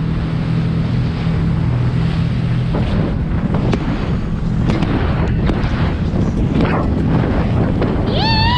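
A boat's outboard motor runs steadily under way, with heavy wind buffeting the microphone and a few sharp knocks. A short wavering high call sets in near the end.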